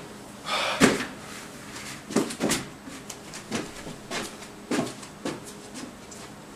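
A series of irregular knocks and bumps, as of objects being handled, with a short rustling clatter about half a second in.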